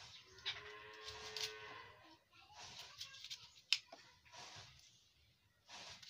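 Kitchen knife cutting and scraping through pieces of badhar (monkey jack) fruit in short, uneven strokes, with a sharp tap a little before the four-second mark.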